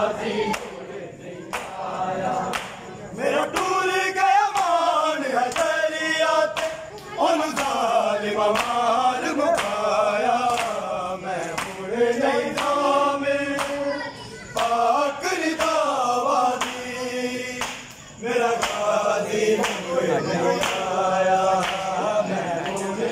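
Men chanting an Urdu noha (Muharram lament) together in chorus, with a steady rhythm of sharp slaps from mourners beating their chests (matam).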